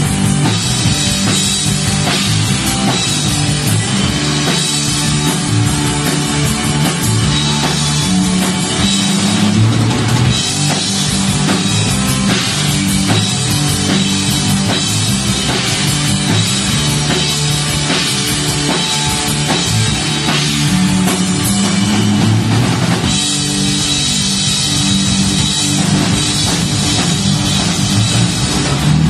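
A rock band playing live, the drum kit prominent, loud and dense as picked up by a mobile phone recording.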